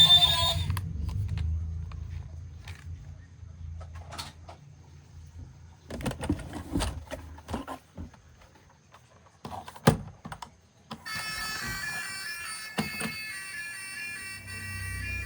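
Scattered clicks and short rattles of small plastic toys being handled, with one sharp click about ten seconds in and a low hum fading away over the first few seconds. Background music comes back about eleven seconds in.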